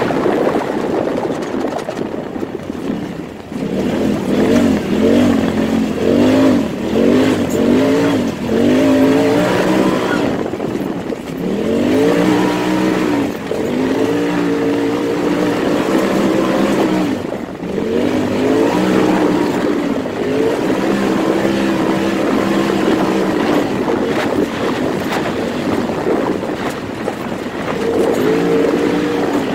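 Turbocharged side-by-side UTV engine being driven hard on a dirt track, its pitch repeatedly climbing and dropping back as the throttle is worked over the rough ground. The engine eases off a few seconds in, then keeps revving up in repeated pulls.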